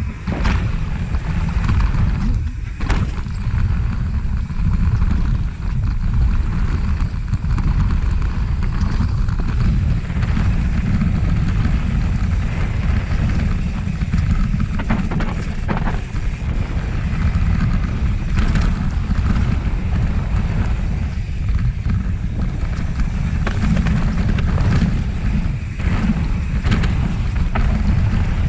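Wind buffeting a helmet or body camera's microphone during a fast mountain-bike descent, a steady low rushing, with scattered knocks and rattles from the bike over the trail.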